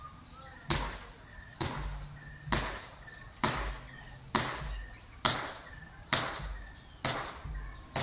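A steady series of sharp knocks, about one a second, each dying away quickly, like chopping or pounding.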